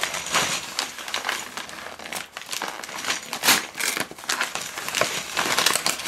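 Padded paper jiffy bag being crinkled and pulled open by hand: an irregular run of paper crackling and crumpling.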